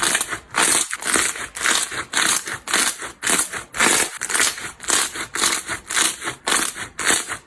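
Slime being squeezed and pressed over and over, each press giving a crackly, squelching crunch of popping air pockets, in a steady rhythm of about two to three presses a second.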